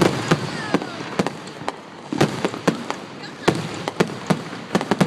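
Fireworks going off close by: about ten sharp bangs at uneven intervals over a steady crackle.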